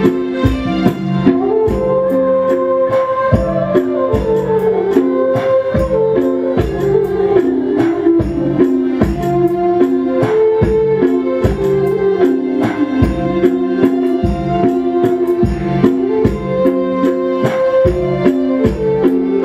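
Live Nepali folk band playing an instrumental passage: a keyboard and flute melody in held, stepping notes over a quick, steady beat with jingling tambourine-like percussion.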